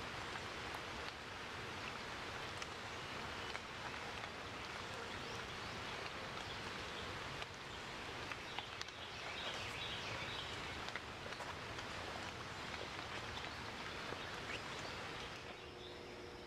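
Steady outdoor ambience: an even hiss with scattered faint ticks, which drops off near the end.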